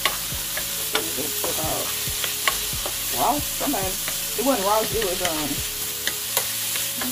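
Chopped vegetables sizzling in a nonstick skillet while a wooden spatula stirs them, with a steady frying hiss and scattered clicks of the spatula against the pan.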